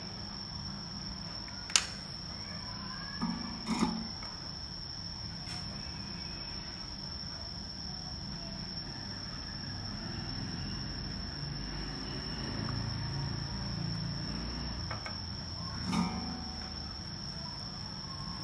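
A steady high-pitched whine over low bench noise, with a sharp click about two seconds in, a couple of light knocks around four seconds, and another click near the end, as tools are handled during soldering on a laptop motherboard.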